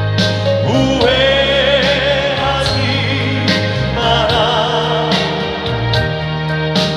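Live band playing a slow song, with long melody notes held with vibrato over steady bass and regular drum hits.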